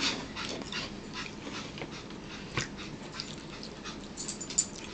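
A spoon tapping and scraping in a plastic bowl as macaroni soup is eaten, heard as a string of soft, irregular clicks.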